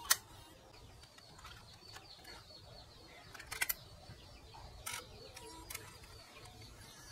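Sharp plastic and metal clicks from a Sony MiniDV camcorder's tape compartment as a MiniDV cassette is handled and seated in it: one sharp click just after the start, a quick cluster of clicks about three and a half seconds in, then two lighter clicks.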